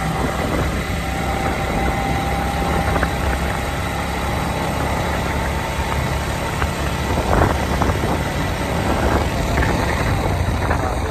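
Motorcycle engine running steadily while riding along, with wind rushing over the microphone.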